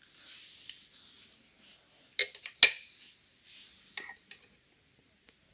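Metal parts of a Fichet lever cabinet lock being handled as it is opened up: soft scraping with sharp metallic clicks and clinks, two loud ones a little after two seconds in and smaller ones near four seconds.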